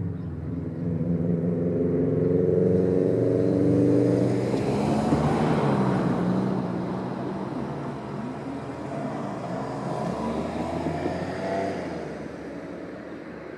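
Road vehicles passing over a railway level crossing: an engine running and pulling through, its tyre and engine noise loudest about five seconds in. Another engine rises briefly around ten seconds in, and the sound then fades away.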